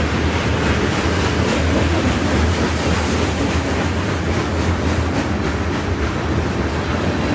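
Freight train of covered hoppers and tank cars passing close by: a steady rumble of wheels on rail, with the repeated clack of wheels over the track joints.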